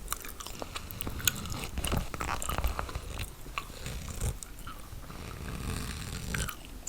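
Gum chewing close to the microphone, with many irregular sharp, wet clicks.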